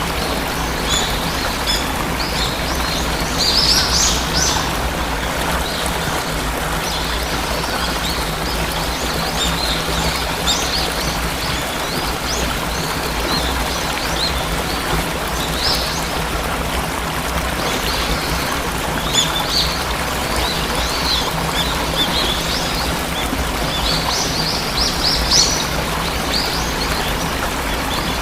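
Steady rushing of a waterfall with small birds chirping over it in short high bursts, busiest about four seconds in and again near the end.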